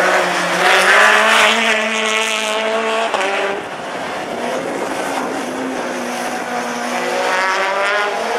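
Renault Clio rallycross car's engine revving hard, its pitch climbing and dropping several times as the car is driven through the corner. It is loudest in the first three seconds, drops back a little, then rises again near the end.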